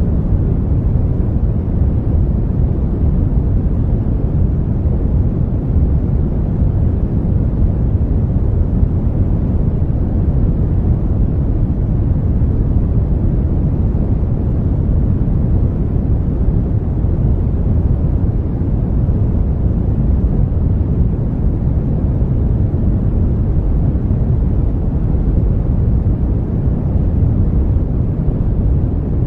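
Brown noise: a steady, even, deep hiss with most of its strength in the low end, thinning out toward the highs, unchanging throughout.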